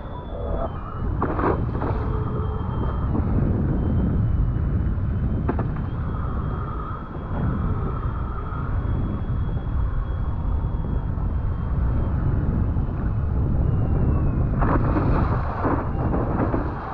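Wind buffeting the microphone on open water, a steady low rumble, with two brief louder rushes of water splashing, about a second in and again near the end. A faint thin high whistle wavers underneath.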